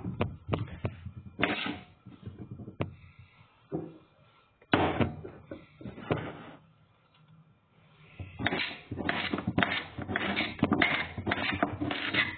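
Knife cutting a zucchini into rounds, in quick even strokes about three a second, beginning about two-thirds of the way in. Before that, scattered knocks and clatter of handling things on the counter.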